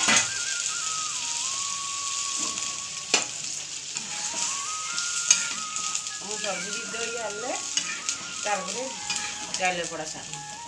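Potato-and-squash curry, with water just added, simmering and sizzling in a black kadai on a gas stove, with a spoon stirring it and knocking against the pan a few times. A faint melody plays underneath.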